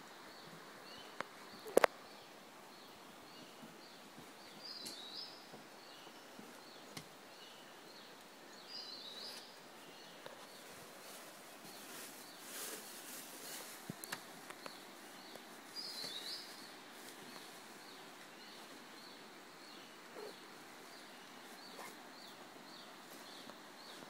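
Rainforest canopy ambience: a short high note repeats a little more than once a second, and a few louder bird calls come about five, nine and sixteen seconds in. A sharp double knock sounds near two seconds in.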